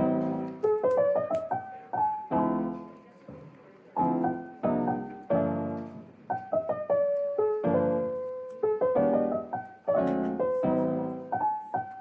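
Background music: a soft piano tune, chords struck about once a second and fading away, with a simple melody above them.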